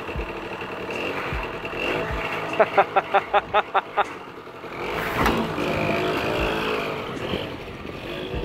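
Vespino moped's small two-stroke engine running and being revved after starting. A quick run of loud sharp pulses, about six a second, comes around three seconds in.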